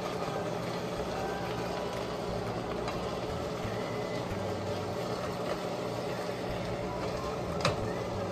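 Hamburger Helper sizzling steadily in a stainless steel skillet while a spatula stirs it, with one sharp click of the spatula against the pan near the end.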